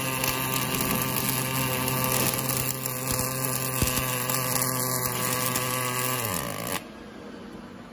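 Wire-fed arc welding by an automatic hydraulic-cylinder rod welding machine: a steady arc crackle over a steady machine hum as it welds the rod end onto the rod. Near the end the hum falls in pitch and the arc cuts off, the weld pass finished.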